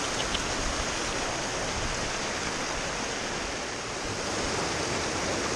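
Steady rush of a small rocky mountain stream (gill) tumbling over stones in little cascades.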